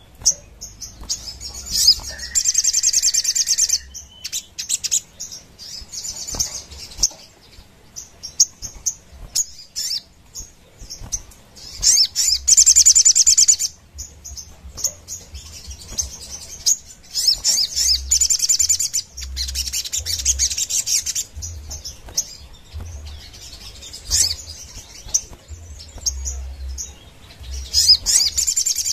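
Sogon (brown-throated sunbird) singing in loud, fast, high-pitched trilled bursts of one to two seconds, with scattered short chirps between the bursts.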